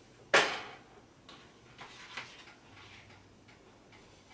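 Cookware handled on an electric stove: one sharp clank about a third of a second in, then a few light taps and clicks.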